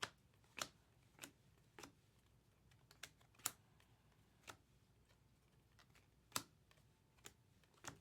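Chromium trading cards being flipped through and set down, giving about a dozen sharp, light clicks at irregular intervals over a quiet background.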